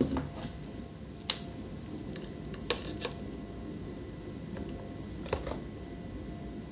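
A few sharp light clicks and taps, about four over several seconds: multimeter probe tips being set against the laptop motherboard's charger input.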